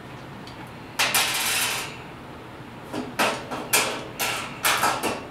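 Metal clatter from a steel caster and its bolts being fitted against the sheet-steel bottom shelf of a rolling tool cart: one rattling clatter lasting about a second, starting about a second in, then a quick run of about five sharp clanks near the end.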